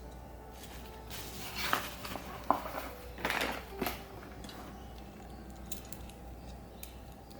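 Handling of a small metal camera clamp: a few short rustles and light metallic clicks between about one and four seconds in, then only a faint low hum.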